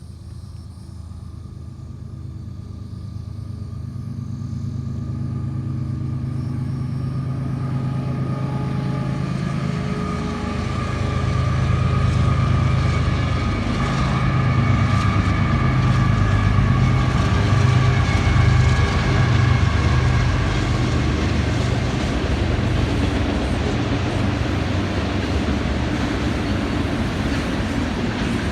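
Diesel locomotives of a freight train approaching and passing: a low engine drone growing steadily louder, loudest with a shifting pitch in the middle as they go by. The lead units are GE ES44C4 road locomotives.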